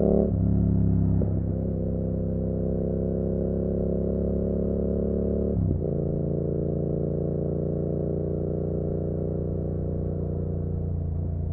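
Yamaha MT-07's 689 cc parallel-twin engine through an SC Project Conic exhaust with the baffle out, heard from a rider-worn recorder while riding. It holds a fairly steady engine note, a little louder in the first second, with a brief break and change in the note a little under six seconds in, as at a gear change.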